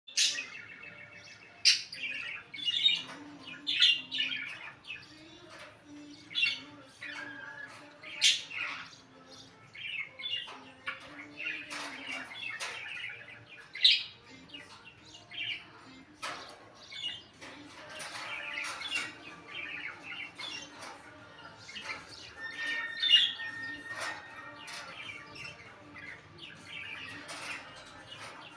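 Indian ringneck parakeet squawking and chattering, a string of short, sharp calls with several loud shrieks.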